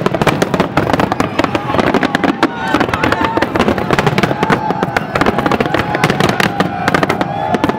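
Fireworks crackling: a dense, rapid run of many small sharp pops with no pause, and a wavering tone in the middle range from a few seconds in until near the end.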